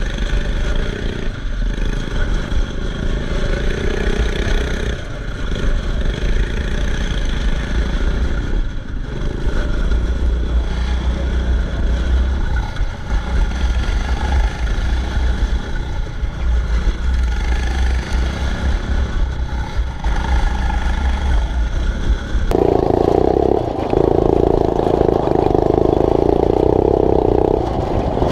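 Yard kart's small engine running and revving as the kart is driven over a dirt track, with clatter from the kart. About 22 seconds in the sound changes abruptly to a louder, denser engine noise.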